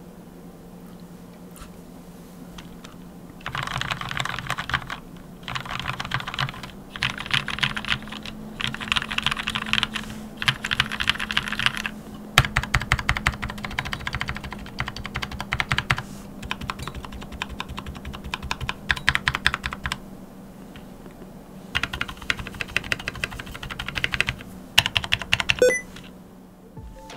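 Anne Pro 2 60% mechanical keyboard with NovelKey Cream linear switches, lubed with Krytox 205g0, being typed on over a deskmat. The typing starts about three and a half seconds in and comes in runs of rapid keystrokes separated by short pauses.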